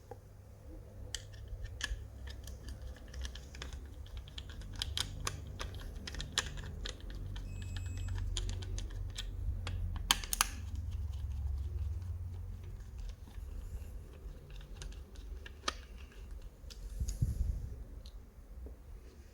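Irregular small clicks and rattles of a plastic push button wall switch and its wires being handled and taken out, over a low rumble.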